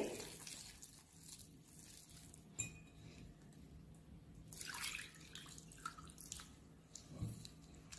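Faint sounds of water being poured from a glass jug into a glass bowl of millet-flour batter while a wire whisk stirs it, with a couple of light clinks of glass.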